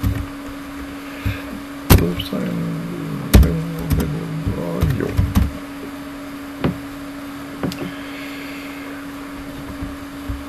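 Typing on a computer keyboard, with scattered sharp key and mouse clicks. Two louder clicks come about two and three and a half seconds in, and a few fainter ones follow, all over a steady low electrical hum.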